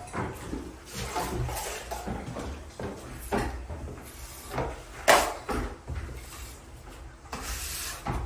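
Steel taping knife scraping and spreading drywall joint compound (drywall mud) in irregular strokes.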